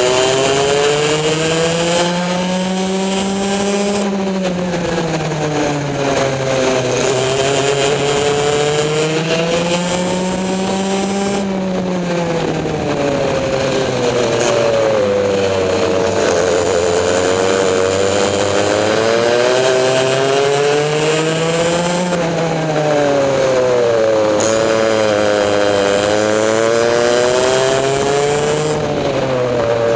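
Easykart's two-stroke engine at race speed, its pitch rising for a few seconds along each straight and dropping back into each corner, again and again.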